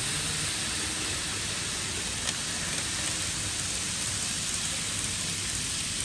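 Steady rushing hiss of model trains running on a layout's track, with a single click a little over two seconds in.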